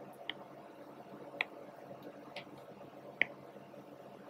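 Four faint, short clicks about a second apart over a low steady hiss.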